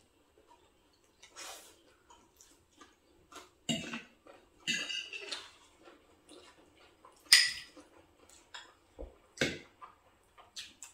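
Close-up eating sounds at a meal: scattered chewing and mouth noises with light taps and scrapes of a spoon on a plate. The loudest is a sharp click about seven seconds in.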